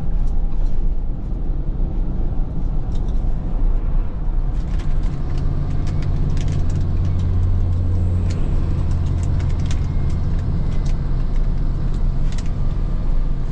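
Interior of a truck cab on the move: a steady low engine and road rumble that grows stronger about four and a half seconds in, with scattered light clicks over it.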